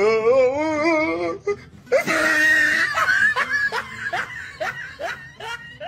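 A person laughing hard: a long wavering cry at the start, a shrill shriek about two seconds in, then laughter breaking into quick rhythmic bursts that fade near the end.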